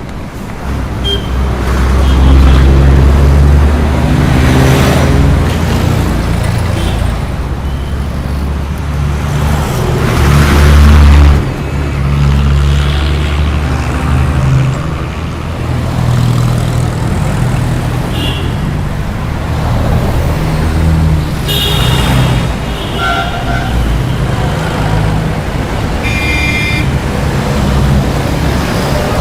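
Busy city road traffic passing close by: a steady engine rumble as cars and heavier vehicles swoosh past one after another, the loudest about eleven seconds in. Short horn toots sound a few times in the second half.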